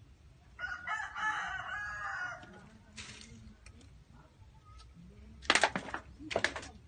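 A rooster crows once, starting about half a second in, in one call of nearly two seconds. Near the end come a few short, sharp noises that are louder than the crow.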